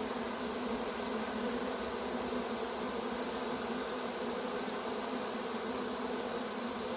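A swarm of honey bees buzzing steadily, a dense, even hum.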